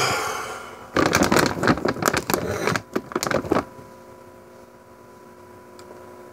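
Pet food bag crinkling and rustling as it is handled, a short rush of noise and then about three seconds of dense crackling, after which only a faint steady hum remains.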